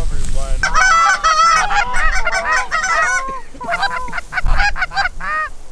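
A flock of Canada geese honking and clucking, many calls overlapping. The calls are thickest for the first three seconds, then thin out to scattered single honks.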